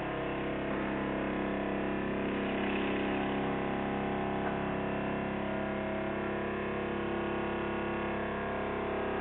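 Diesel engine of a road-rail piling rig running steadily, a constant hum of several tones.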